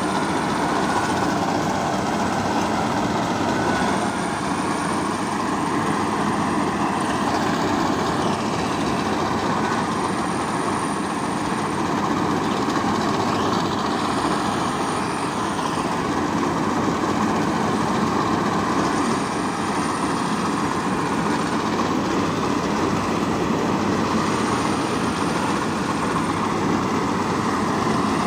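Farm machinery running steadily, a dense even mechanical din with no change in pace, and a faint high whine that comes and goes every few seconds.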